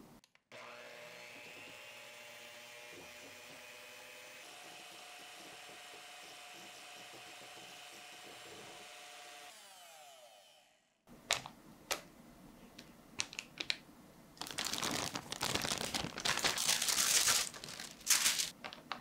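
Electric hand mixer whipping cream in a glass bowl, a steady motor whine that steps up slightly in pitch about four seconds in and winds down with falling pitch about ten seconds in. Then a few sharp clicks and louder crinkling of baking paper near the end.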